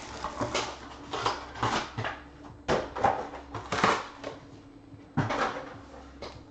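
Short rustling and scraping sounds, about six in all, from trading-card packs and a card box being handled and moved on a table.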